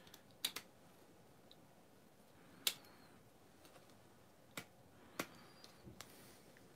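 Sharp plastic clicks, four or five spaced a second or two apart, from the parts of a Transformers F-14 Tomcat figure being moved and snapped into place during its transformation.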